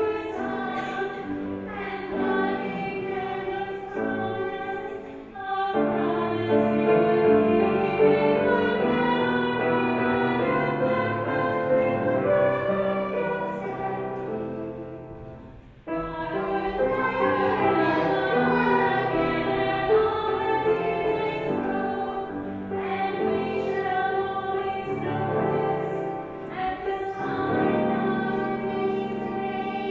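Children's choir singing a cantata song with musical accompaniment. About halfway through, the music dies away and a new section starts at once.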